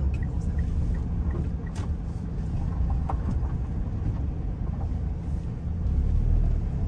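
A car's engine and tyre noise heard from inside the cabin while it drives slowly: a steady low rumble.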